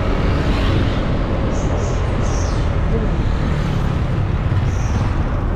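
Motorcycle engine running as the bike rolls slowly along the road shoulder, with a steady low rumble.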